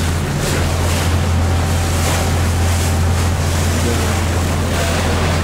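Tour boat under way at speed through choppy sea: the steady low drone of its engine under the rush of water breaking along the hull, with the spray surging every second or so.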